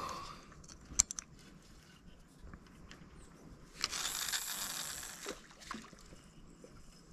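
Baitcasting fishing reel: a sharp click about a second in, then a hissing whir of the turning reel for about a second and a half.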